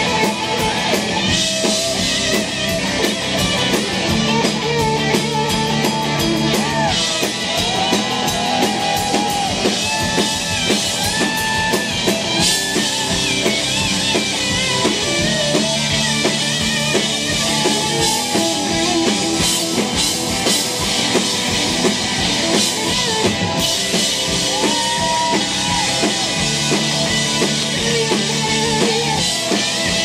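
A live rock band plays, with an electric guitar lead full of bent, sliding notes over a steady drum kit beat.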